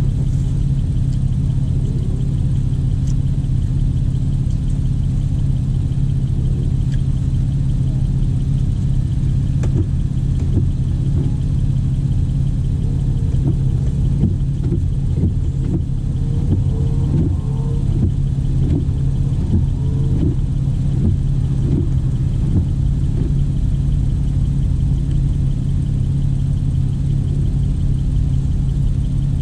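A car engine idling steadily, heard from inside the cabin of a Porsche, with a strong low hum and a few faint taps around the middle.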